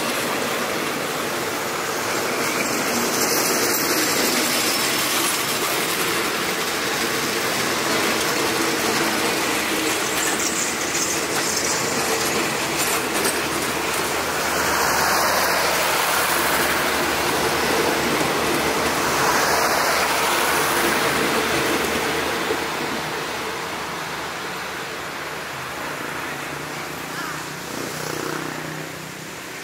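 Passenger train coaches rolling past on the rails, a steady rumble of wheels and running gear that fades away over the last several seconds as the end of the train pulls out.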